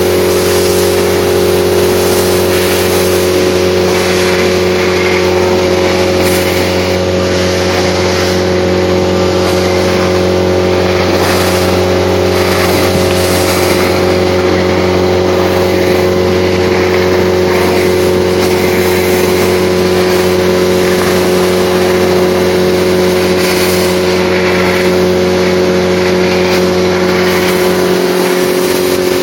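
Multi-Vac industrial vacuum running loud and steady, with a constant hum under a hiss of air. Loose, moist hay-based cattle feed is sucked up through its metal wand, and the hiss swells and fades a little as the wand works through the pile.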